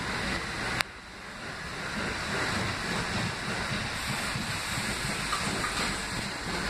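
Kawasaki R68A subway train pulling into the station and rolling past close by, a steady rush of wheels on rail. A sharp click comes about a second in; the sound drops for a moment after it and then builds again as the cars pass.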